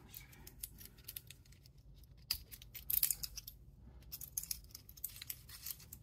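Faint, scattered small metal clicks and taps from a black-coated steel watch bracelet and its clasp being handled and lined up. The clearest clicks come about two and three seconds in.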